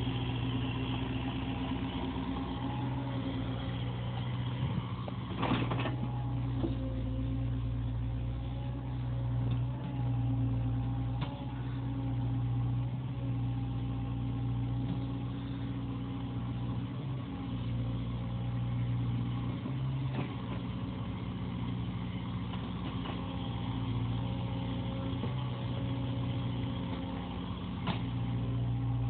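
CAT 305 mini excavator's diesel engine running steadily under working load, its pitch dipping and recovering slightly now and then. A few sharp clanks come through, one about five seconds in and one near the end.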